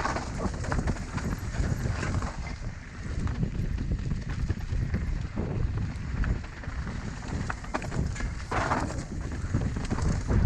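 Mountain bike riding down a dirt trail: tyres rumbling over the ground, with frequent rattling knocks from the bike and wind on the microphone. There is a short louder hiss about eight and a half seconds in.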